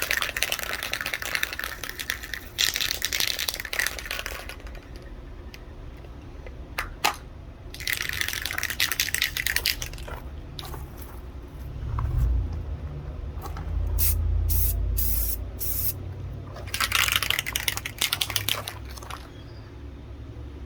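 Aerosol can of Fusion all-in-one white spray paint hissing in about four bursts of a couple of seconds each while a first coat goes onto a model body shell. Short clicks and handling knocks fall between the bursts, with a low rumble in the middle.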